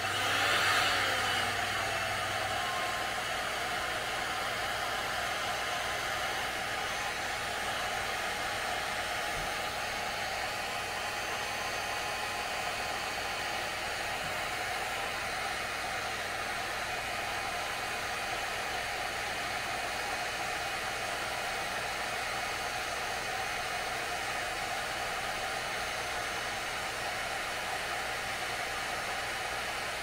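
Electric heat gun switched on, its fan coming up to speed within about a second, then blowing hot air steadily as it heats a solder heat-shrink connector to melt the solder band.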